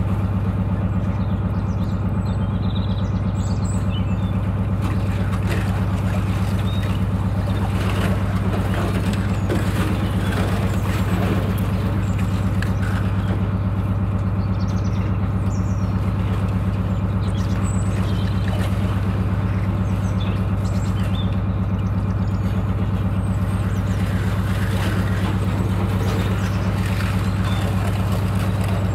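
Narrowboat's diesel engine running steadily at cruising speed, a constant low throb, with light crackling now and then that is heaviest about ten seconds in.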